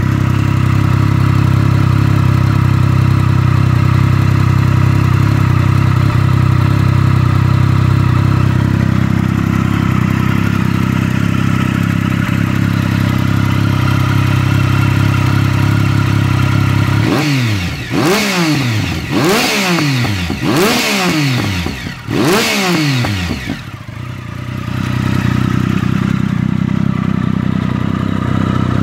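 Triumph Speed Triple 1050's inline three-cylinder engine through Mivv Ghibli aftermarket exhaust pipes, idling steadily, then blipped about five times in quick succession with the revs rising and falling sharply, before settling back to idle.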